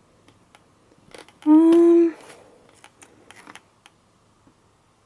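Small clicks and snaps of a plastic toy package and figure being handled and pulled apart, with a short, steady-pitched "hmm"-like sound from a man's voice about a second and a half in, the loudest thing heard.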